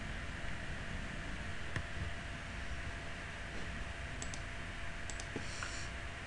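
A computer mouse clicking a few times, singly and in quick pairs, over a steady background hiss.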